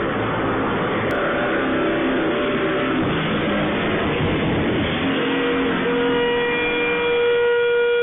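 Road traffic noise from moving vehicles. About five seconds in, a vehicle horn starts and is held in one long, steady blast.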